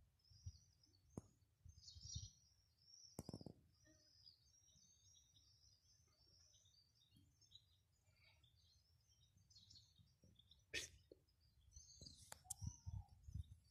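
Small birds chirping faintly and repeatedly, many short high chirps. A few sharp clicks and low thumps, more of them near the end.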